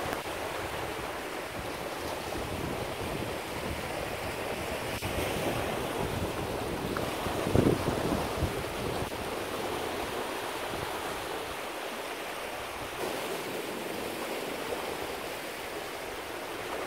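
Sea surf washing over a rocky shore, a steady rush of water with wind on the microphone, and one louder wave splash about halfway through.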